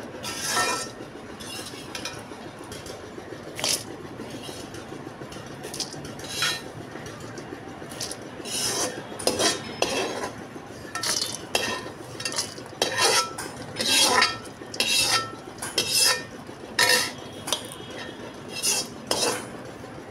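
A metal spoon scraping and clinking against steel cookware as chopped fried nuts are moved and stirred. The scrapes are scattered at first and come thicker and louder from about eight seconds in.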